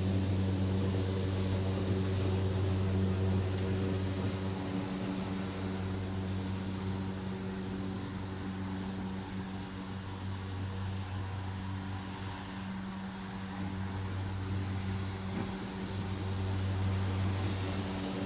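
Lawn mower engine running steadily at a constant speed. It gets somewhat quieter in the middle and louder again near the end.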